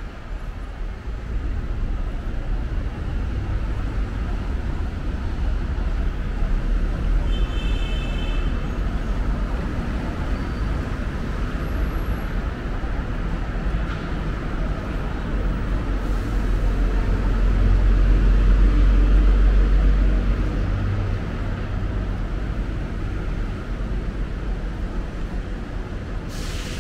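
City street traffic noise: a steady low rumble that swells loudest for a few seconds about two-thirds of the way in, with a brief high tone near the one-third mark.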